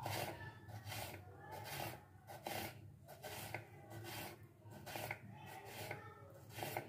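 Kitchen knife slicing raw potato into thin sticks on a wooden chopping board: a run of short cuts, about two a second, each ending with the blade meeting the board.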